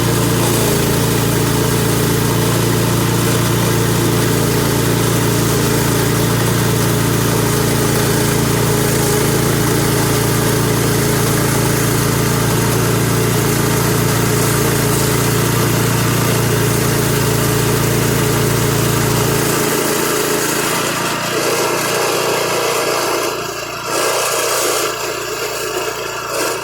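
Sawmill engine running steadily while the blade cuts through a black cherry log. About twenty seconds in the engine's low hum drops away, leaving a lighter, noisier running sound with a few louder bursts.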